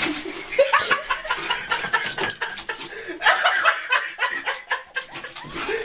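People laughing and chuckling in short bursts.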